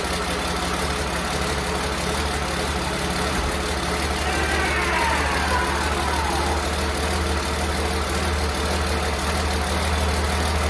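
Cummins diesel engine in a Humvee idling steadily on its first run in two years.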